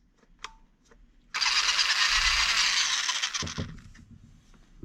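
Latrax Teton RC truck's electric motor and drivetrain whirring at high speed under throttle for about two seconds. It starts suddenly about a second and a half in, then fades as it spins down.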